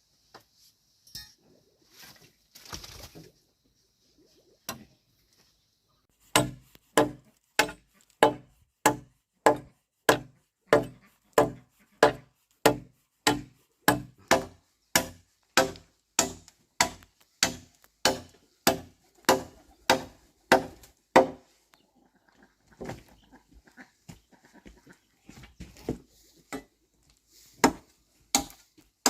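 Steady rhythmic chopping, a blade striking into wood or a chopping block about twice a second. It runs for about fifteen seconds, stops, then a few more strikes come near the end.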